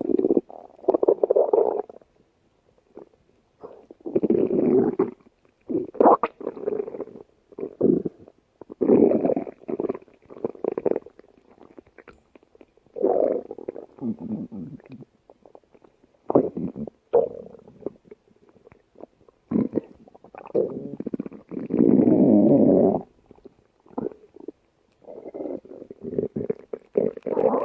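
A stomach growling: a long run of gurgling rumbles that come in irregular bursts of about a second each with short gaps between them. The longest and loudest rumble comes about two-thirds of the way through.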